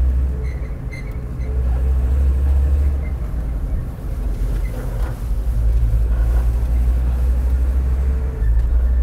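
1994 VW T4 2.5 Syncro van driving, heard from inside the cab: a steady low rumble with a faint rubbing grind from the front-right wheel that changes as the steering is swung back and forth. The grind comes from the turning front-right wheel, which the mechanics suspect could be a worn wheel bearing letting the wheel rub against the brake mounting.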